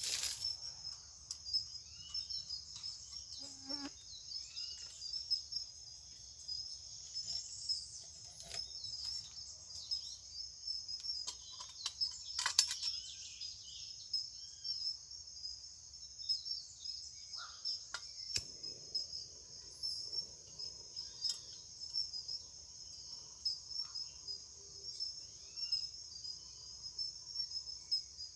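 A steady high insect chorus trilling throughout, with scattered short bird chirps and a few sharp clicks, the loudest about halfway through.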